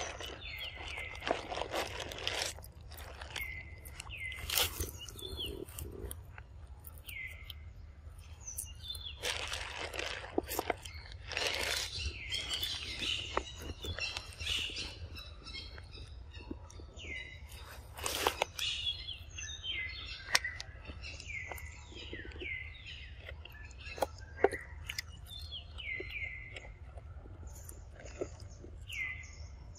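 A long-tailed macaque biting into and chewing a ripe mango, with sharp bites now and then. Birds chirp throughout with short, repeated falling calls.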